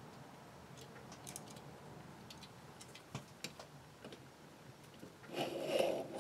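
Faint clicks of digital calipers being handled and set against a steel block. Near the end comes a short, louder scratch as the caliper jaw tip is drawn along the blued mild steel base, scribing a marking line.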